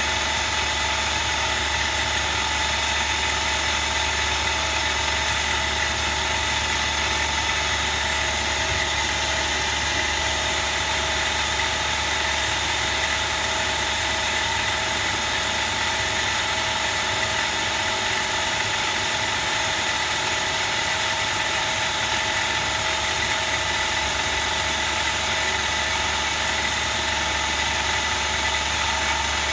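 Machine-shop equipment running steadily: a constant low hum with several steady high-pitched whines over it, unchanging throughout.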